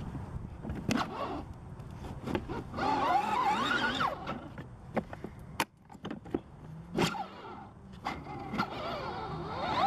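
Plastic ride-on toy car driving over bumpy dirt: its electric drive whines with a wavering squeal, and the plastic body knocks and rattles on the bumps.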